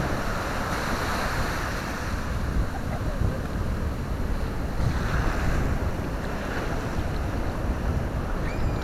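Ocean surf breaking and washing ashore, with wind buffeting the microphone as a low rumble. The hiss of the surf swells up a couple of times as waves break.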